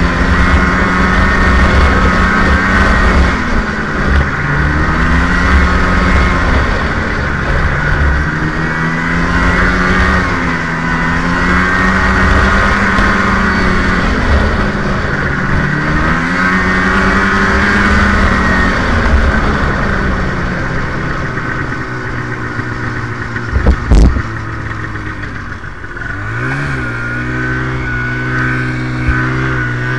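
550 Voyageur snowmobile engine running along a trail, its pitch rising and falling with the throttle. A single sharp knock comes about 24 seconds in. After that the engine drops to a lower, steady note.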